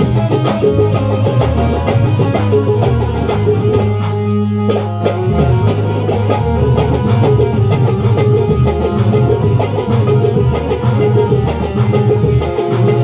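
Loud recorded song with a heavy bass line and a steady beat. The higher percussion drops out briefly about four seconds in while the bass carries on.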